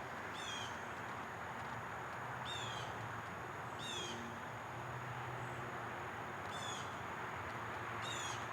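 A bird calling five times, each call a quick series of notes falling in pitch, over a steady outdoor hiss and a thin, steady high whine.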